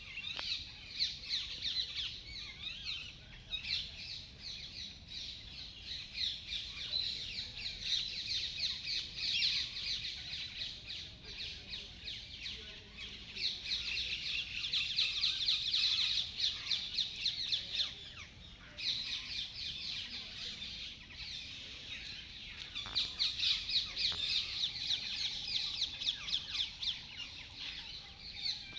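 A dense chorus of many birds chirping, with rapid high-pitched notes running together and swelling and easing in waves.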